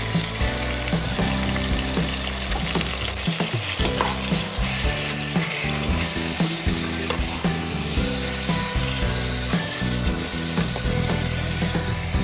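Marinated beef strips and onions sizzling in a hot nonstick frying pan as they are stirred, with short clicks and scrapes of the spatula against the pan. Background music with a bass line plays underneath.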